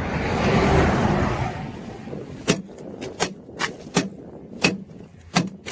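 Sharp knocks, about ten of them at an uneven pace, of ice being struck off a truck that is caked in ice from a blizzard. Before them, a passing vehicle's rushing noise swells and fades over the first two seconds.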